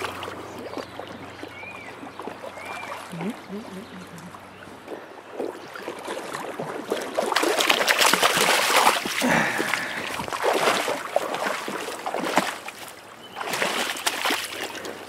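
Splashing in shallow stream water, in two louder bouts about halfway through and near the end, over the steady run of the stream.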